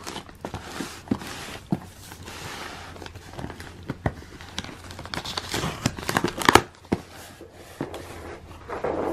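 Paper wrapping torn off a cardboard shipping box and the box flaps opened by hand: tearing, crinkling and rustling with short sharp clicks, busiest about six seconds in.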